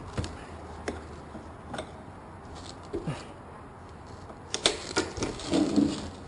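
Irregular clicks, taps and short scraping sounds from hand tools working on a truck's back window glass to free it. About four and a half seconds in comes a quick cluster of sharper, louder clicks.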